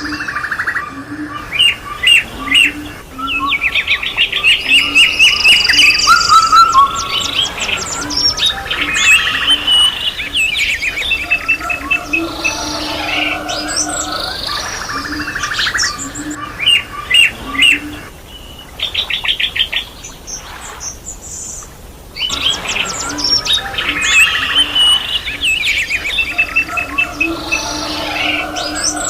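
Dense chorus of many wild birds singing at once: overlapping rapid trills, chirps and whistles, with low repeated calls underneath. The chorus thins out for a few seconds about two-thirds of the way through, then fills back in.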